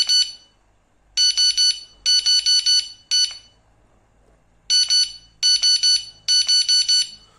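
Electronic carp bite alarm beeping: short runs of two to four quick, high-pitched beeps, repeated about seven times, as its button is pressed to set the sensitivity.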